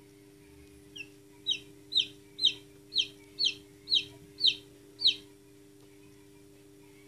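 Newly hatched chick peeping: nine loud, high calls in a row, each one falling in pitch, about two a second, starting about a second in and stopping after about five seconds.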